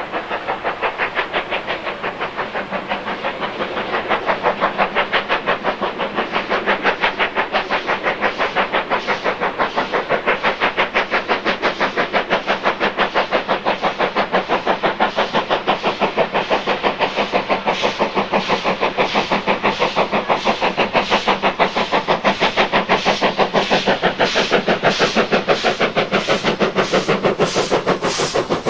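Steam locomotive working hard, its exhaust beating in a quick, even rhythm of chuffs; it gets louder about four seconds in.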